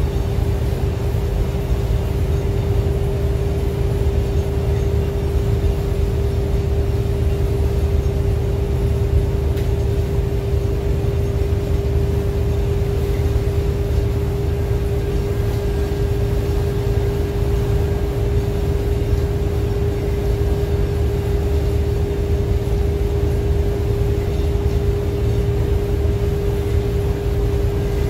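Neoplan AN440 transit bus with a Cummins ISM diesel cruising steadily at about 70 mph: a loud, even, low engine and road rumble with a constant whine held over it.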